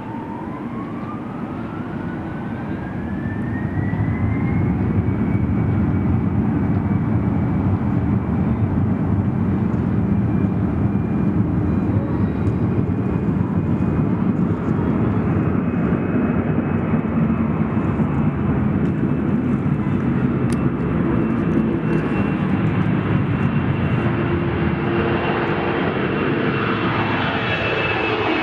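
Airliner engines spooling up, with a whine rising in pitch over the first five seconds, then running loud and steady with a high whine over a broad roar, as at take-off power. Near the end the pitch of the engine sound falls as the aircraft passes.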